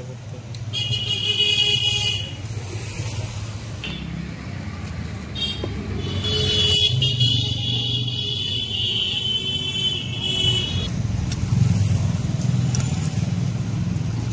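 Road traffic: vehicle engines rumbling, with a high horn sounding briefly about a second in and again for several seconds from about six seconds in.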